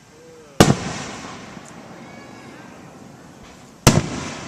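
Two loud firework shell bursts about three seconds apart, each a sharp bang followed by a rumbling echo that fades over about a second.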